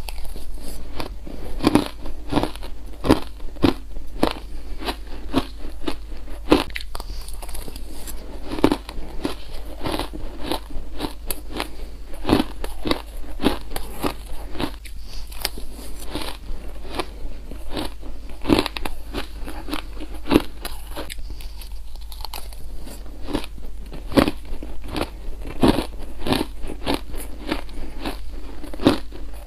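Crunching and chewing of powdery frozen grape- and banana-flavoured ice: mouthfuls of shaved ice bitten and crushed between the teeth in a rapid run of crackling crunches, easing briefly about two-thirds of the way through.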